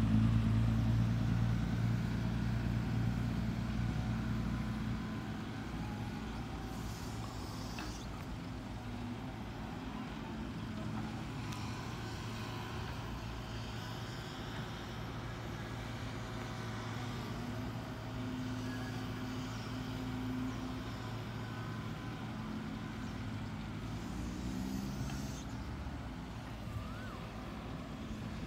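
Diesel engine of a fully loaded dump truck pulling up out of a pit, very loud at first and fading over the first five seconds to a steady, lower drone.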